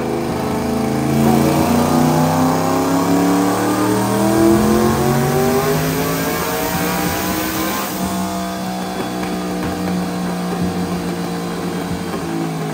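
Engine of a Factory Five Racing '35 hot rod truck accelerating, its pitch climbing over the first few seconds, then running on at a steadier note after about eight seconds.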